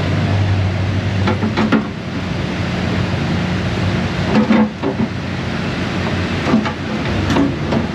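A steady rushing noise with a low hum, over which come a handful of short knocks and clinks of metal tools and parts being handled, about a second and a half, four and a half, and seven seconds in.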